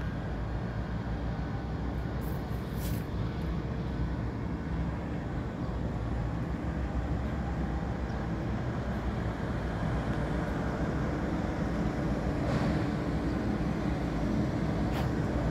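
Steady low rumble of vehicle noise with a faint hum.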